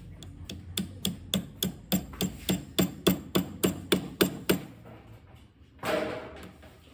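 A hammer striking repeatedly at an even pace, about three blows a second, some sixteen in all, growing louder after the first few. About six seconds in comes a short, louder noisy sound.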